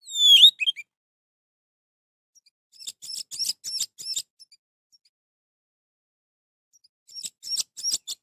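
Orange-headed thrush singing in three phrases: a loud, slurred phrase at the very start, then two runs of quick, high repeated notes about three and seven seconds in.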